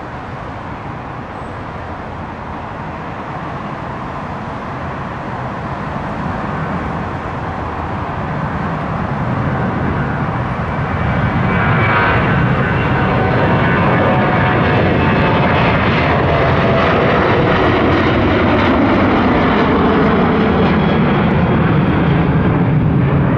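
Jet engine noise from a Boeing 737-700's two CFM56-7B turbofans at takeoff power. It grows steadily louder for about the first half and then holds loud, with a faint falling whine in the second half.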